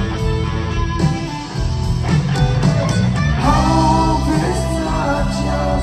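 Live rock band playing loudly, with electric guitar lines over bass and drums and no sung words.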